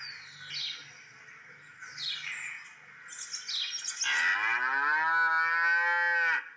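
A cow mooing: one long moo starting about four seconds in, rising in pitch and then held, that cuts off suddenly. A few short bird chirps come before it.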